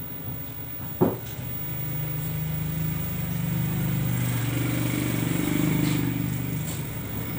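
A motor vehicle's engine passing, a low steady sound that swells and then eases off near the end, with a sharp click about a second in.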